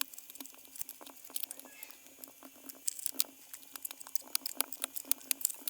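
Faint, rapid, irregular light clicks and taps, strongest about three seconds in, as small hard objects are handled.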